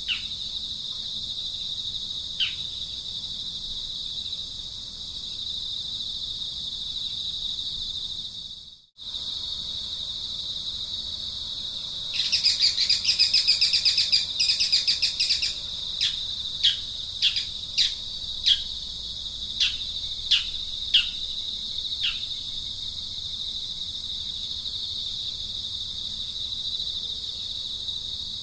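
Steady high-pitched drone of an insect chorus, with a fast pulsing chirr for a few seconds past the middle and a run of short, downward-sliding bird calls after it. The sound cuts out for a moment about a third of the way in.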